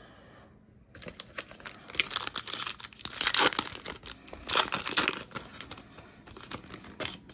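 A trading card pack's wrapper being torn open and crinkled, a run of crackling and rustling that starts about a second in and is loudest around the middle.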